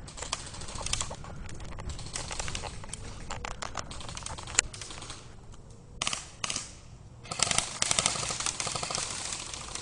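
Airsoft electric rifles firing full-auto: fast trains of sharp clicks. A long stretch of fire, then two short bursts about six seconds in, and another long burst near the end.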